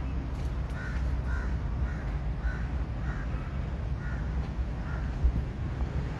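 A bird calling, a run of about eight short calls roughly every half second, over a steady low rumble.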